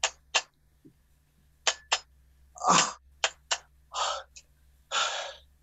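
A person making mouth sound effects for a broken, leaking washing machine: a run of short hisses and sputters, with a few longer breathy gushes about halfway through and near the end.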